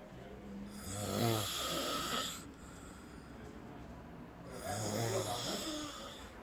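A person snoring: two loud rasping snores on the in-breath, each lasting one to two seconds, about four seconds apart.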